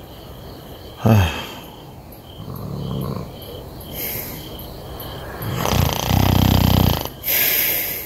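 A man's low, throaty breathing sounds. A short one comes about a second in and a long, loud snore-like one comes about six seconds in, followed by a rustle. Insects chirp steadily in the background.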